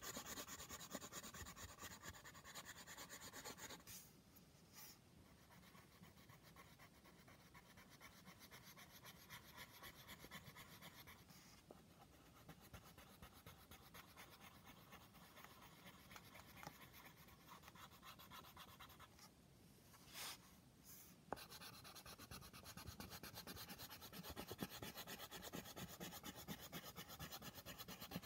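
Faint scratching of a grey coloured pencil on paper in rapid back-and-forth shading strokes, stopping briefly a few times.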